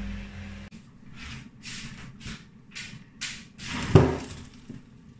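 Uncooked rice rustling and scraping in a stainless steel bowl in short strokes, about two or three a second. About four seconds in, a loud knock with a brief metallic ring as the metal bowl is knocked or set down.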